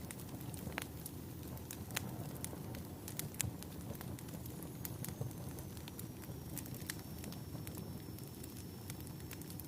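Wood fire burning in a fireplace: a steady low rumble of flames with irregular sharp crackles and pops, the loudest about two and three and a half seconds in. A faint high whistle sets in about halfway through.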